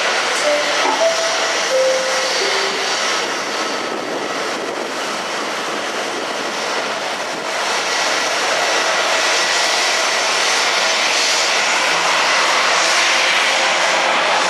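Airbus A320 jet engines running at taxi power: a steady whine over a broad rush, getting louder about halfway through as the airliner turns towards the listener.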